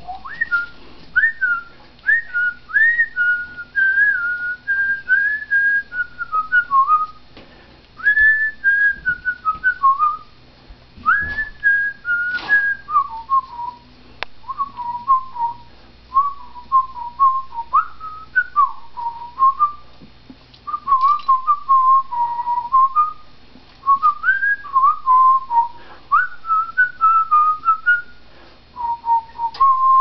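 Whistling: short, pure whistled notes sliding up and down in tune-like phrases, with brief pauses between phrases.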